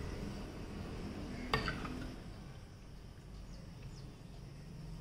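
A single light clink of metal kitchenware about a second and a half in, ringing briefly, over a low steady background hum.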